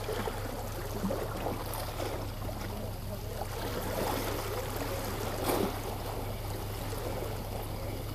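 Water lapping and sloshing, irregular and splashy, over a steady low hum, with one brief tap about five and a half seconds in.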